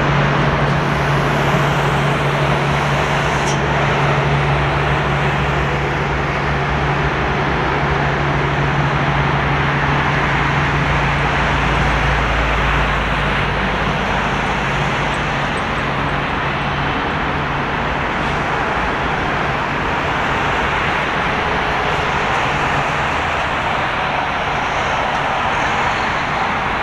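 Boeing 787-8's Rolls-Royce Trent 1000 turbofan engines running at low taxi power as the airliner rolls slowly past: a steady jet rush with a low hum. A deeper rumble swells around the middle.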